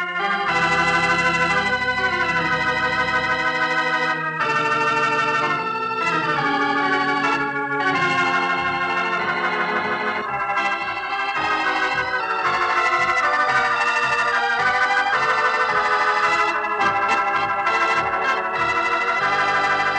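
Closing theme music played on organ: sustained, slightly wavering chords that change every second or two.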